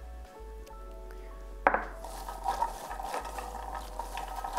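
Raw green beans tossed by hand in oil in a glass baking dish: a sharp clack about a second and a half in, then a steady rustle of many small clicks as the beans are turned over.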